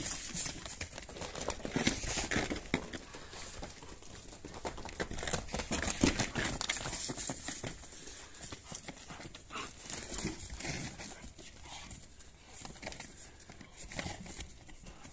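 Donkey and sheep hooves stepping and shuffling on straw-strewn ground: irregular soft thuds with rustling of straw.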